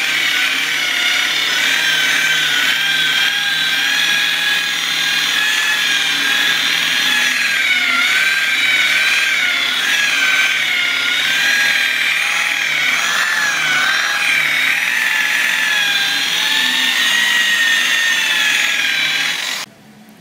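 Electric rotary buffer spinning a foam polishing pad at about 1700 to 1900 RPM on a plastic headlight lens, polishing with machine polish. A steady whine that wavers in pitch, cutting off suddenly near the end.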